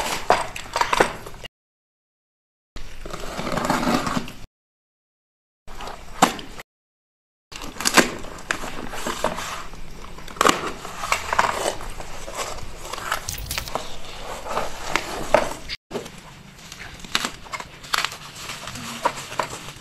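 Unboxing handling sounds: a utility knife cutting the packing tape on a cardboard shipping box and the carton being handled, then black plastic bubble-wrap packaging crinkling and crackling as it is pulled open. It comes in short pieces with many sharp clicks, cutting out to silence three times in the first eight seconds.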